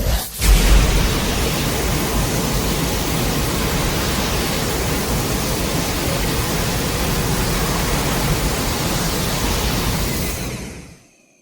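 Loud, steady rushing noise with a brief break just after the start, fading out over the last second or so.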